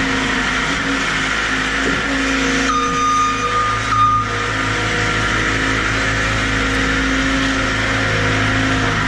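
Skid steer's diesel engine running steadily under load. A steady high whine sounds for about a second and a half, about three seconds in.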